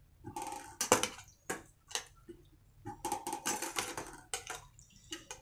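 A stainless steel slotted spoon scraping and knocking against a steel bowl while small raw mangoes are scooped out of their salt-and-turmeric brine and dropped into a metal mesh strainer. It is an irregular run of clinks and scrapes with a faint metallic ring, busiest about three seconds in.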